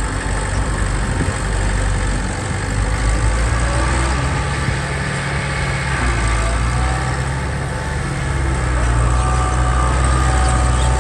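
Heavy diesel engine of earthmoving machinery running steadily at low revs, with a deep, even engine note.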